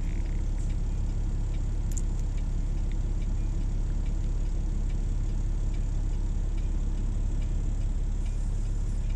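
Diesel truck engine idling, a steady low rumble heard from inside the cab, with a few faint light ticks over it.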